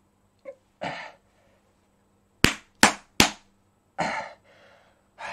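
Three quick, sharp slaps of a hand on bare stomach skin, about a third of a second apart, with a man's out-of-breath breathing before and after them just after a hard workout.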